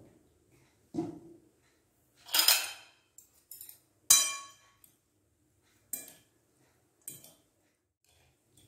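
Metal fork clinking and scraping against a cut-glass salad bowl while tossing a grated vegetable salad: a run of separate clinks and scrapes, the loudest a ringing clink about four seconds in.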